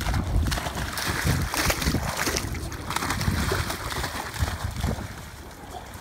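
Small dogs running and splashing through shallow river water, the splashing heaviest in the first few seconds and easing near the end, with wind rumbling on the microphone.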